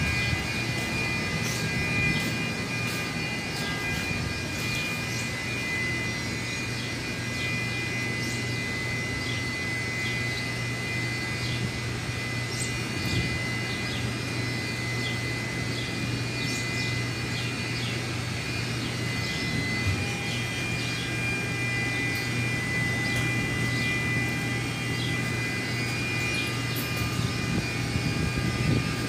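Steady mechanical hum of running machinery: a constant low drone with two high, even whining tones over it and scattered faint ticks.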